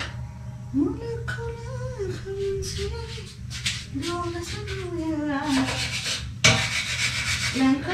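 A vocal melody of long held notes that slide from one pitch to the next, over a low steady hum. About five and a half seconds in, a loud hissing rush joins it and runs almost to the end.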